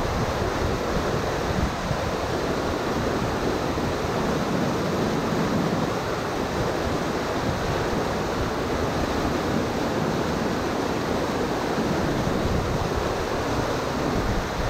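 Whitewater rapid rushing steadily over a rocky river drop.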